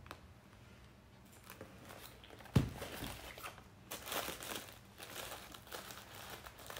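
Tissue paper inside a cardboard mailer box crinkling and rustling as it is handled and unwrapped, in irregular bursts over the second half. A single dull thump comes about two and a half seconds in.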